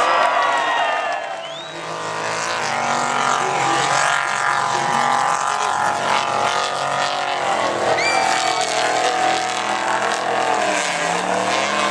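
Off-road race truck engine running hard, its pitch rising and falling as the driver revs through the course.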